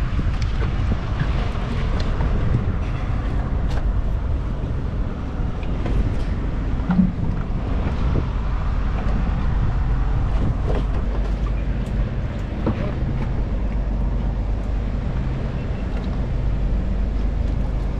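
Steady low hum of four 300-horsepower outboard motors idling, with wind and water noise over it, and a brief thump about seven seconds in.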